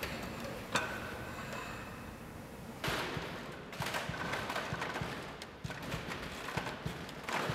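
Scattered light thumps and knocks of dancers' bodies and feet against wooden set pieces, over a steady hiss of room noise, with a louder knock about three seconds in.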